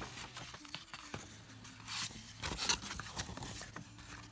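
Paper rustling and crinkling as a mini poster and album insert sheets are handled, with scattered light clicks and scrapes. The loudest crinkles come about two to three seconds in.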